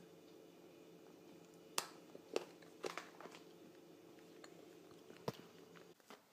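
Someone chewing a milk chocolate piece, with a few sharp mouth clicks over a faint steady hum that cuts off near the end.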